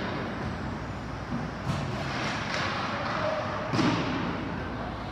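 Ice hockey game sounds in a rink: a steady hiss of play and faint spectator chatter, broken by a sharp knock about two seconds in and a louder knock near four seconds in, typical of puck and sticks hitting during play.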